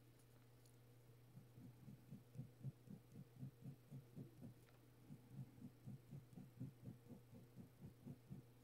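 Faint, soft strokes of a ballpoint pen hatching on paper, a quick rhythmic run of about three to four strokes a second that starts about a second in, over a low steady electrical hum.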